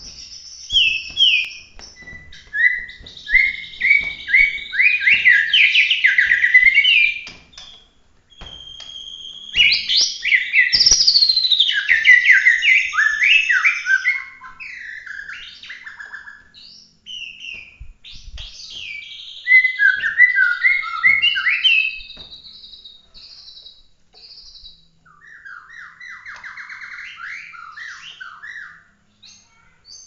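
Caged Bahorok white-rumped shama (murai batu) singing: loud bouts of fast runs of short whistled notes that step and glide up and down, with quieter warbling phrases between the bouts.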